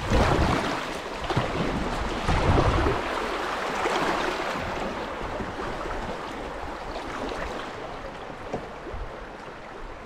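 Rushing river water, an even loud hiss that eases slowly, with low rumbling thumps during the first three seconds.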